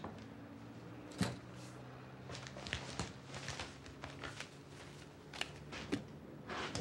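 Scattered knocks, clicks and rustles of someone moving about and handling things in a small room, over a faint low steady hum. The sharpest knocks come about a second in and at the very end.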